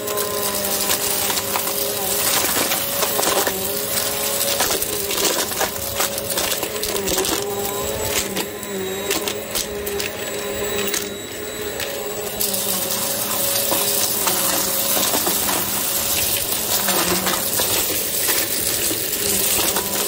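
Hoover upright vacuum cleaner running on carpet, its motor humming steadily while debris crackles and rattles up through the nozzle as it is pushed into a pile of lint mixed with small hard, shiny bits. The crackling thins and the sound drops a little for a few seconds in the middle, then picks up again.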